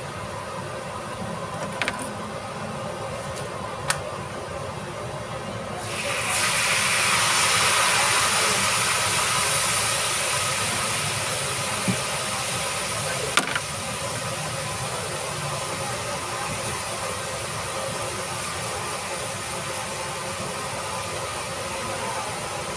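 Food going into hot oil in a wok: a sudden loud sizzle about six seconds in that peaks and gradually settles into a steady frying hiss. A few sharp clicks are heard, before and during the frying.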